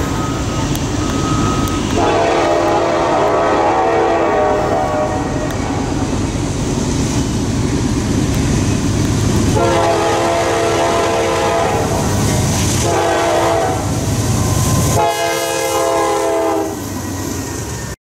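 Norfolk Southern diesel locomotive sounding its multi-note air horn in four blasts: long, long, short, then long, over the low rumble of the engine and train.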